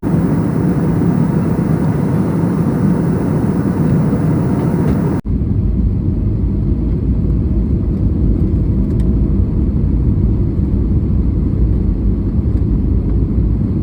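Steady loud rumble of a boat running under power, with wind on the microphone. The sound changes abruptly about five seconds in to a deeper, heavier rumble.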